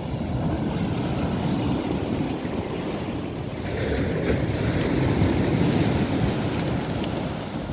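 Black Sea surf washing onto the shore, with wind blowing across the microphone. The wash swells a little louder about halfway through.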